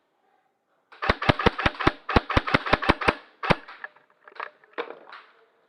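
Airsoft gun firing a rapid string of about a dozen sharp shots, roughly five a second with a short break in the middle, followed by a few softer knocks.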